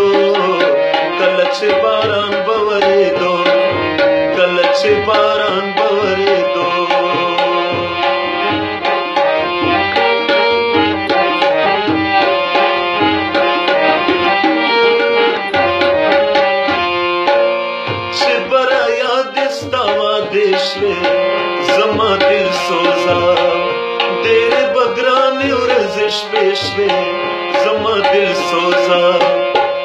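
Instrumental interlude: a harmonium carries the melody over a steady tabla rhythm, with regular deep bass-drum strokes.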